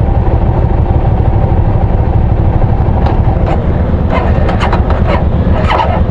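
Hyosung GV650's V-twin engine running with a steady low throb, picked up by a mic inside the rider's helmet. From about halfway in, short sharp clicks and rustles sound over it.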